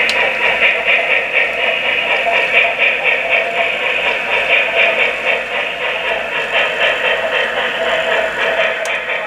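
Steam-locomotive chuffing from a QSI Revolution DCC sound decoder in an HO-scale Big Boy model, played through its small tender and smokebox speakers, in a steady, fast, even rhythm as the model runs. The sound is thin, with little bass.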